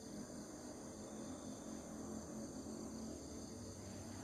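Faint, steady chorus of insects over a low outdoor rumble, with no sudden sounds.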